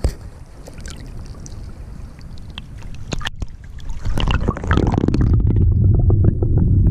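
Shallow stream water splashing and lapping around a hand releasing a trout at the surface. About four seconds in, the sound turns to a loud, muffled underwater rumble and gurgle with the highs gone, as heard by a camera submerged in the stream.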